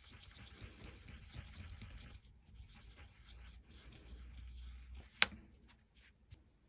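A small brush scrubbing a copper 10-yen coin through mayonnaise in a shallow metal tin, a soft scratchy rubbing that fades after about two seconds. About five seconds in comes one sharp click, then two or three fainter ticks.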